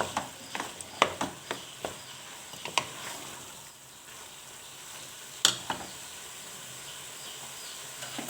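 Chicken, calamari and vegetables sizzling in a pan while being stirred, with scattered scrapes and knocks of the utensil against the pan, the loudest about five and a half seconds in.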